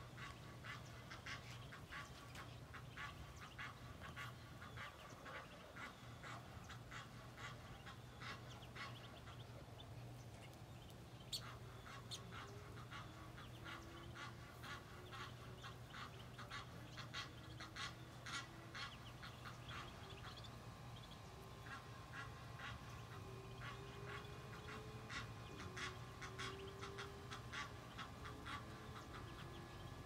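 A brood of Muscovy ducklings peeping: a rapid, irregular stream of short, high cheeps, over a steady low hum.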